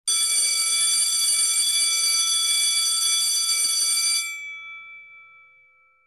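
Electric school bell ringing continuously for about four seconds, then stopping, its tones dying away over the next two seconds.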